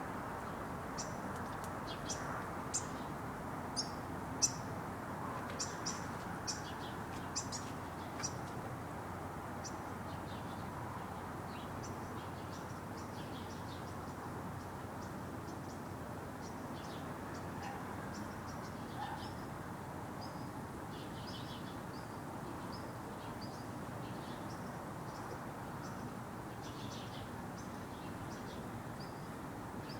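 Small birds chirping in short, quick high notes, thick for the first several seconds and then fainter and scattered, over a steady low background hiss and rumble.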